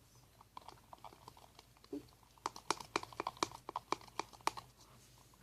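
White glue, black food colouring and lotion being stirred together for slime: a fast, irregular run of faint clicks and taps that stops near the end.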